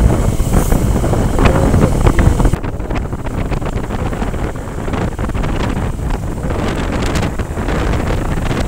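Wind rushing over the microphone of a moving motorcycle, a Hero Hunk, with its engine running beneath the wind. About two and a half seconds in the rush drops suddenly and turns lighter, then holds steady.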